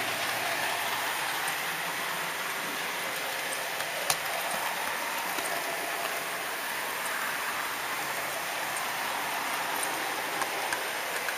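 Model train running along the track, heard from a camera riding on it: a steady rushing noise of the train on the rails, with a few faint ticks and one sharp click about four seconds in.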